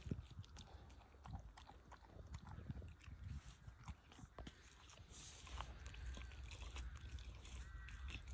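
Dog chewing and crunching on turkey, a run of faint, irregular crunches and bites.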